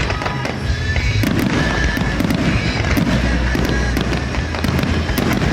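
Fireworks display: shells bursting in quick succession over a continuous low rumble, with sharp crackling throughout.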